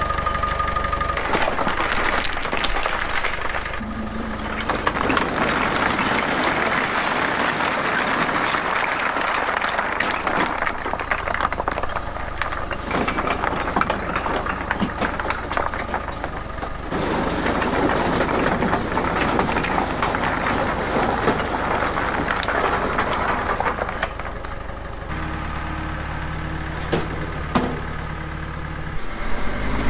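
Bulldozer working: its diesel engine running under a dense grinding, clattering noise for most of the time, then the engine running more steadily near the end with a few sharp cracks.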